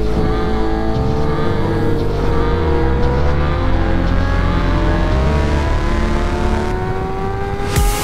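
Kawasaki ZX-6R's inline-four engine pulling hard in one gear at highway speed, its note rising steadily in pitch, with a heavy rush of wind. A sudden louder rush of noise comes near the end as the bike draws alongside a semi truck.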